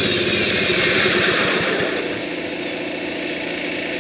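MTD riding mower engine running with its fuel turned off, burning the last fuel in the carburetor. The sound eases off about two seconds in while a steady mechanical run carries on.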